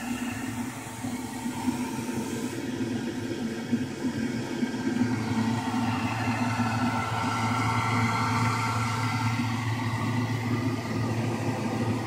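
Marine blower on a homemade ice-chest air conditioner running with a steady whirring hum as it pushes air through a foil flex duct. The low part of the hum grows a little stronger about five seconds in.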